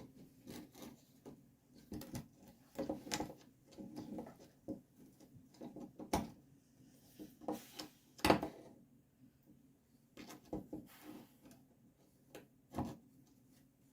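A hand nail-pulling tool clicking and scraping against small nails in a wooden screen-door frame as they are gripped, twisted and pulled out. The strokes are short and irregular, the sharpest about six and eight seconds in.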